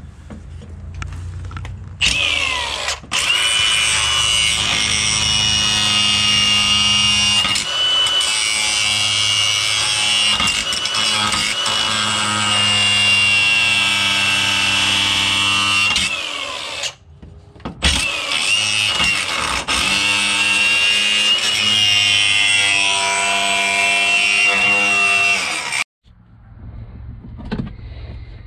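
Angle grinder with a grinding stone cutting through seized seat-mounting bolts: a steady high whine over harsh grinding. It stops about 17 seconds in, spins back up, and cuts off abruptly near the end.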